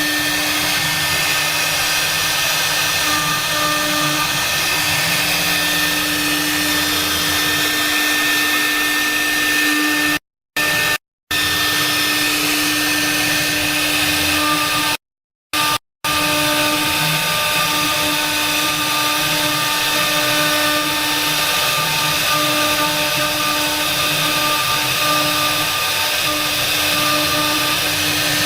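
CNC router spindle running and cutting, a steady machine whine with a strong low hum. The sound cuts out to silence briefly twice near the middle.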